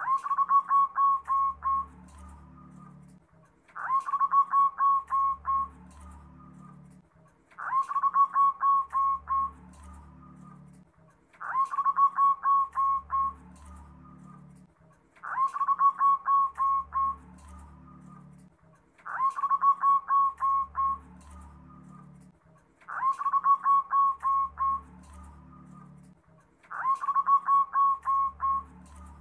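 Zebra dove (perkutut) cooing. Its song phrase is a rising opening note followed by a quick run of short, even notes, and it is repeated regularly about every four seconds, eight times.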